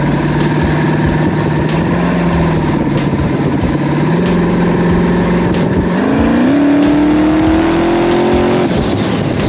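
Turbocharged Chevrolet Silverado V8 running under throttle, its pitch stepping up a little, then climbing steadily in a hard pull from about six seconds in before dropping off sharply near the end.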